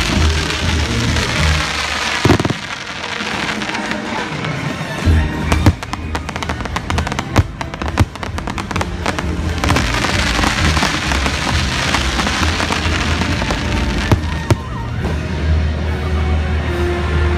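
Fireworks bursting and crackling over loud show music, with sharp bangs a couple of seconds in, around five seconds in and near the end, and a dense stretch of crackle in the middle.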